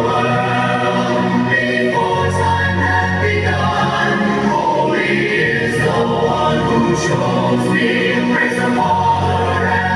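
A choir singing a hymn-like song, several voices together on held notes, over a steady low accompaniment.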